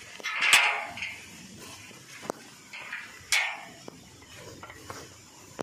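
A rusty iron gate's sliding bolt latch being worked open: a metallic scrape with a sharp clank about half a second in, a second scrape a little over three seconds in, and a few light clicks.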